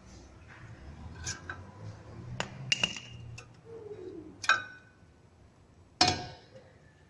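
Brake pads and hand tools clinking and knocking, metal on metal, as the pads are taken out of a disc brake caliper: about five separate sharp clinks, some ringing briefly.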